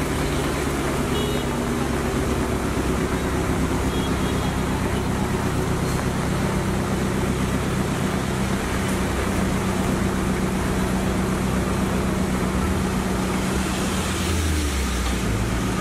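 A motor vehicle engine running steadily, with road traffic noise around it.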